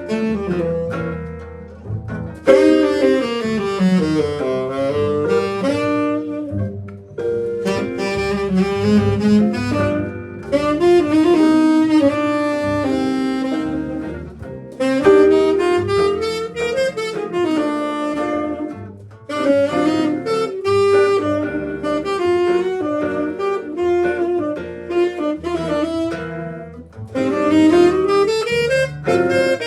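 A jazz band playing, a saxophone carrying the melody in phrases of a few seconds each, with bass notes underneath.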